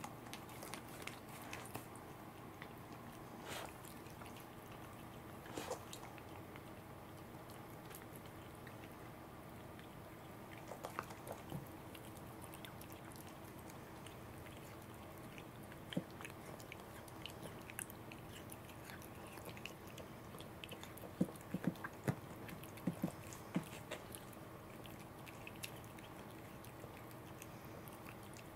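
A cat nibbling and chewing small pieces of raw salmon held in fingers: faint, scattered clicks of teeth, with a run of sharper clicks about three quarters of the way through.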